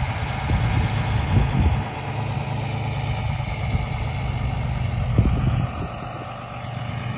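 Diesel engine of a John Deere tractor running steadily as it pulls a trailer loaded with round bales. The low hum dips about two seconds in and fades near the end, with a couple of dull knocks.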